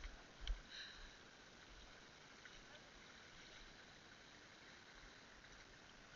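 Near silence: a faint steady hiss, with one soft knock about half a second in.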